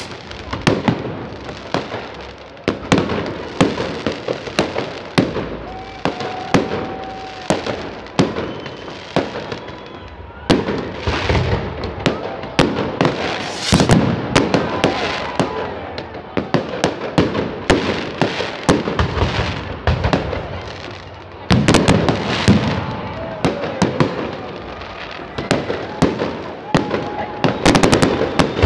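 Aerial fireworks bursting: a dense, continuous run of sharp bangs and crackles, one after another, over a constant wash of further explosions.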